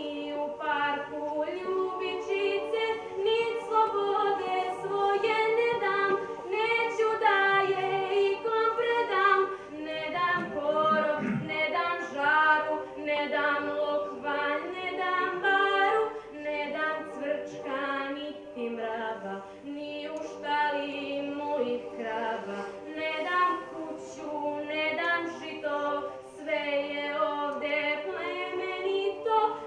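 A girl's solo voice singing over a children's choir that holds steady sustained notes, with no instruments.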